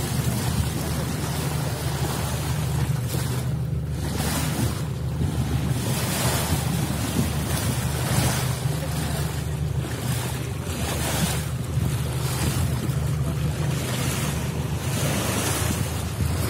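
Boat engine idling with a steady low hum, under wind buffeting the microphone in gusts and the sea washing around the hull.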